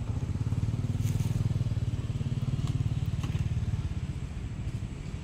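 A low, pulsing engine rumble that swells over the first second, holds, and eases off after about three and a half seconds, with a few faint clicks over it.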